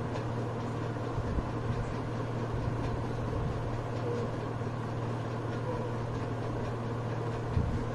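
Steady low hum of background room noise, unchanging throughout.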